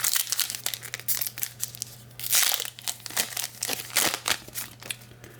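Crinkling and crumpling of a trading-card pack wrapper being ripped open and handled, loudest about two and a half seconds in, stopping shortly before the end.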